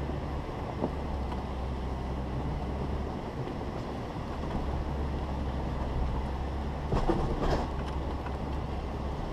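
A 4x4 driving over a dirt trail: a steady low engine and drivetrain rumble, with a cluster of knocks and rattles about seven seconds in.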